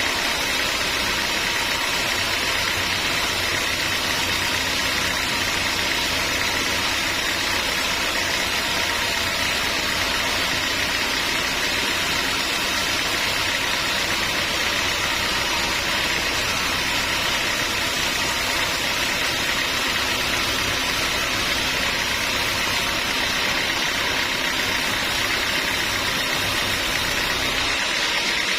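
Sawmill machinery running steadily, a constant mechanical drone with a low hum beneath it.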